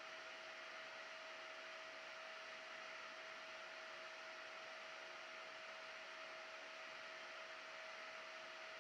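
Cooling fan running faintly and steadily: an even hiss with a steady hum tone.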